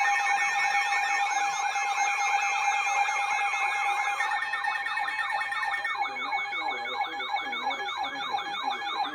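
Several electronic sirens sounding at once, rapid rising-and-falling wails repeating two to three times a second, over a bed of steady tones. Some of the higher steady tones drop out about four and six seconds in.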